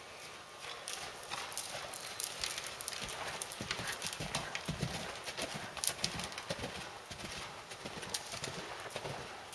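Hoofbeats of a Canadian Warmblood moving under saddle on the dirt footing of an indoor arena, a steady run of muffled strikes that grows louder in the middle as the horse passes close by.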